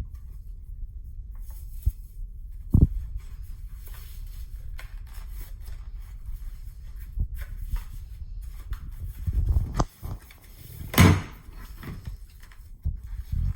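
Box and packaging being handled and opened: scattered knocks, thumps and rustling over a low rumble, with the loudest thumps about three seconds in and again near eleven seconds.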